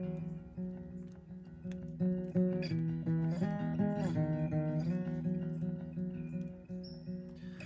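Acoustic guitar played on its own, a run of chords changing about every second.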